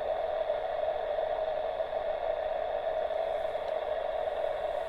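Receiver hiss from a Xiegu G90 transceiver's speaker with no station transmitting: a steady rushing noise held within the radio's narrow voice band and strongest in its lower part.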